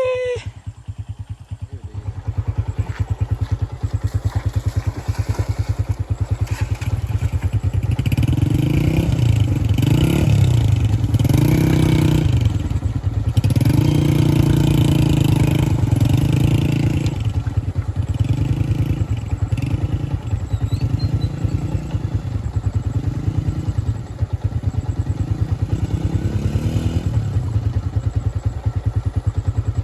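Motorcycle engine running under way. Its rapid, even firing is steady at first, then from about a quarter of the way in the engine note repeatedly rises and falls as the throttle and gears change.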